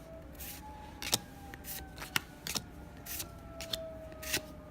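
Pokémon trading cards being handled and flicked through: a few sharp snaps and short rustles of card stock. A faint tone glides slowly downward in the background.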